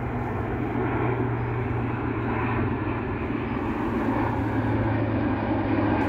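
Airplane engine droning overhead, a steady low hum with no change in pitch.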